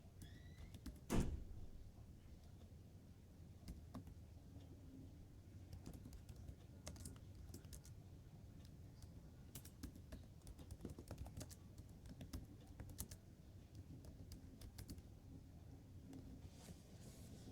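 Faint computer keyboard typing: scattered key clicks, with one louder thump about a second in.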